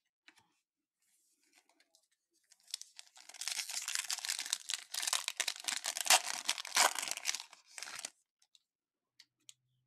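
Foil wrapper of a baseball card pack being torn open and crinkled by hand, a dense crackling that starts about three seconds in and stops about five seconds later.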